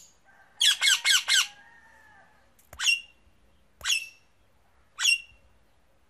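Male Indian ringneck parrot squawking: a quick run of four loud, harsh calls about half a second in, then three single sharp calls about a second apart.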